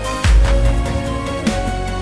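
Background music with a steady beat: held synth-like notes over a deep bass hit about a quarter second in and light ticking cymbals.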